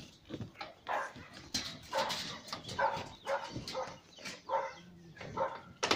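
A dog barking in a run of about six short barks, roughly one a second.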